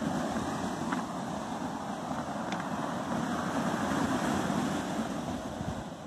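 Sea surf breaking and washing up a pebble beach, swelling to its loudest about four seconds in and then easing, with wind on the microphone. A couple of faint clicks sound about one and two and a half seconds in.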